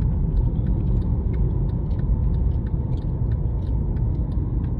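Steady low rumble of a Mercedes car's engine and tyre noise heard inside the cabin while driving slowly.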